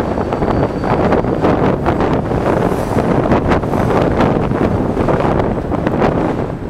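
Heavy wind buffeting on the microphone of an electric scooter moving at road speed: a loud, gusting rumble that covers any sound from the quiet electric motor.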